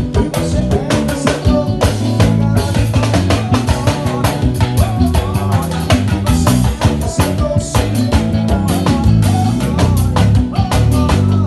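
A forró gospel band playing live during a soundcheck: a steady drum-kit beat with bass and guitar, in full band sound.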